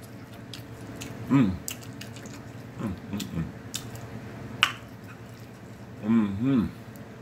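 Close-miked chewing and lip-smacking of a mouthful of food, with scattered wet mouth clicks and three brief hummed sounds of the voice.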